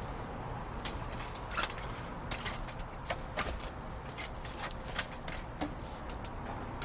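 Rummaging in a dumpster: a run of irregular, sharp light clicks and knocks as bottles and trash are handled, over a steady low background rumble.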